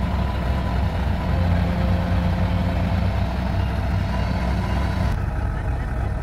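Kubota DC-93 combine harvester's diesel engine running steadily at close range, a low even hum. A higher hiss over it cuts off about five seconds in.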